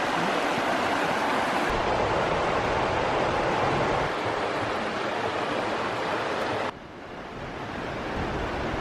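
Steady rush of falling water from a waterfall, with some wind on the microphone. About two-thirds of the way through, the sound drops suddenly to a quieter rush, then slowly builds again.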